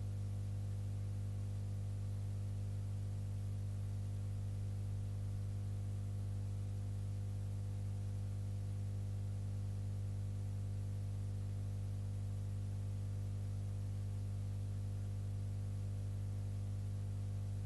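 Steady low electrical hum with an even hiss over it, unchanging throughout: mains hum and noise in the wildlife webcam's audio feed.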